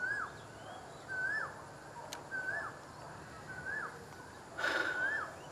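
A bird calling repeatedly, a short whistled note that rises and then drops, about five times at an even pace. A brief hiss-like noise comes near the end.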